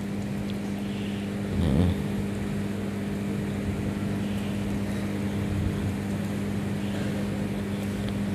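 A steady low hum made of several even tones, with a short louder sound just before two seconds in.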